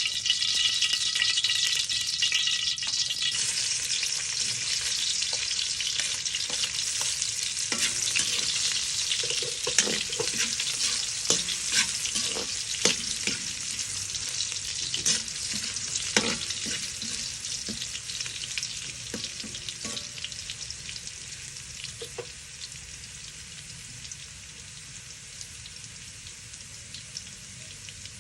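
Food sizzling in a hot pan while being stirred, with the utensil knocking and scraping against the pan many times. The sizzle slowly dies down over the last several seconds.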